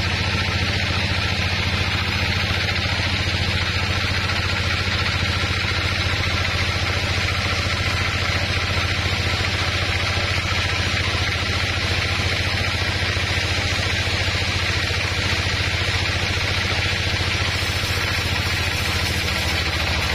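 Large band sawmill running steadily: a constant low machine hum from its drive, with a steady higher hiss from the band blade.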